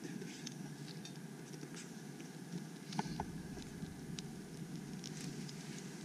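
Small folding wood-burning twig stove with a freshly lit fire of bark and sticks, crackling steadily with scattered sharp snaps.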